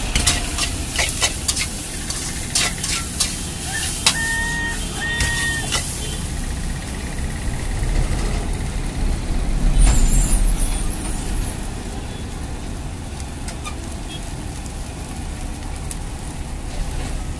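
Wok stir-frying at a street stall: a metal spatula clanks and scrapes in an iron wok over a steady gas burner, with street traffic behind. Two short beeps come about four and five seconds in, and a heavy vehicle rumbles past with a hiss about ten seconds in.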